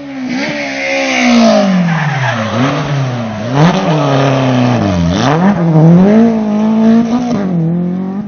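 Rally car engine at full effort driving through the stage, its revs dropping and climbing again several times as the driver lifts, shifts and accelerates.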